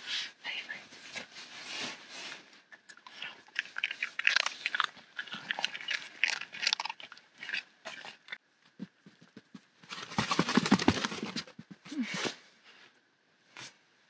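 Small dog chewing and crunching pieces of chestnut fed from a hand, with many crisp bites and clicks. About ten seconds in comes a longer, louder stretch of close crunching and rustling.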